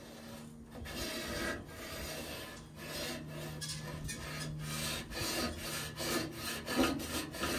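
A hand-held marking tool sliding and scraping along a steel sill panel in short, repeated strokes as it is centred and used to mark the metal, over a faint steady low hum.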